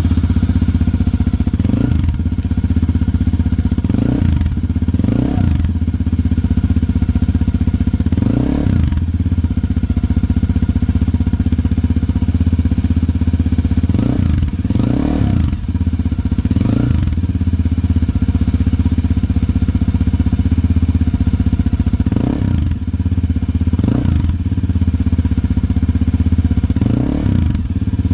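Yamaha XT250's single-cylinder four-stroke engine idling through a Delkevic 350 mm oval carbon-fibre slip-on muffler with its baffle in. The throttle is blipped about ten times, each rev rising and dropping quickly back to a steady idle.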